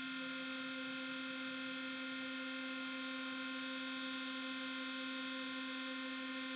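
Spindle motor of a home-built CNC milling machine running at speed without cutting, a steady whine that holds the same pitch throughout.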